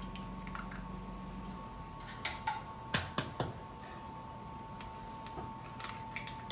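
Eggs being cracked against a bowl: a few sharp taps and shell cracks in small clusters, with a steady faint high tone behind them.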